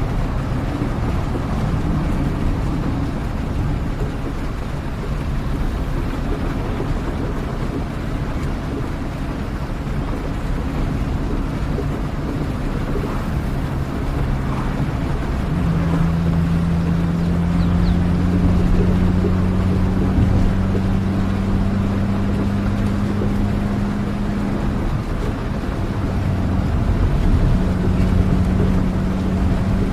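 Steady rain noise over the low drone of a running vehicle engine, heard as on a ride through the rain. About halfway through, the engine's hum grows stronger and rises slowly in pitch.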